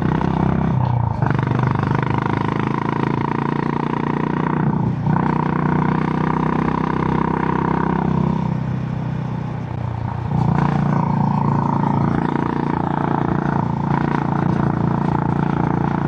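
Honda GB350's 348 cc air-cooled single-cylinder engine running under way through its stock exhaust. The note drops briefly and picks up again about four times, and eases off for a couple of seconds about two-thirds of the way through before coming back on.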